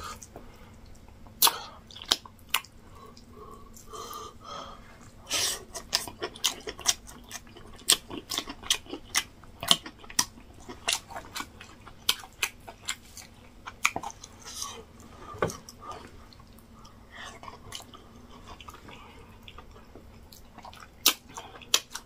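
Close-up eating sounds of a man chewing soft yam fufu and egusi soup, with irregular wet smacks and clicks from the mouth. The smacks come several a second through the middle stretch and thin out toward the end.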